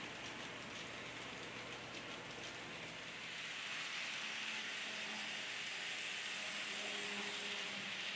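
Kato N scale model train rolling along its track, a steady hiss and patter of small wheels on the rails. It gets a little louder about halfway, when faint humming tones join in.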